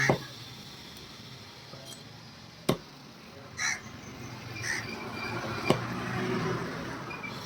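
Two sharp knife chops through quail, about three seconds apart.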